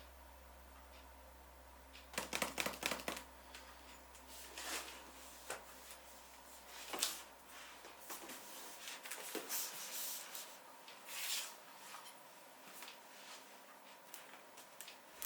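Hands handling small computer parts and packaging: a quick run of clicks about two seconds in, then scattered rustles and clicks.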